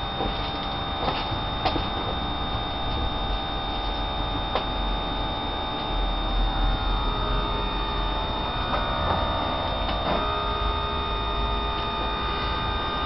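Electric fuel pump of a Renault 5 GT Turbo, hot-wired to run with the engine off, humming steadily as it pumps fuel through the fuel pressure regulator, with a few faint clicks. About six seconds in the hum shifts and grows slightly louder, with a set of tones rising a little in pitch.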